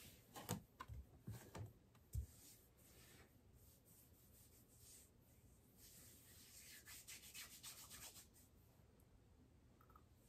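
Mostly near silence: a few soft thumps in the first two seconds as bare feet step off a bathroom scale onto a tiled floor, then a faint rubbing rustle about seven seconds in.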